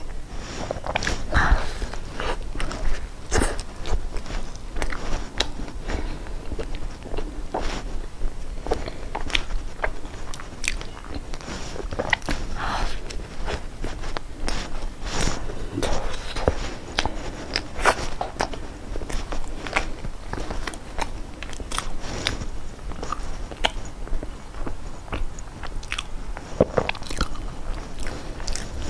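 Close-up biting and chewing of a crisp, crumb-coated pastry, with frequent short crunches and crackles of the crust between quieter chewing.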